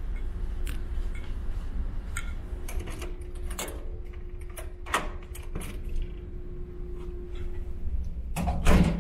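A key jingling and clicking in a ferry cabin door lock as it is fitted and turned, ending in a louder clunk as the lock opens. A steady low rumble of the ship's engines runs underneath.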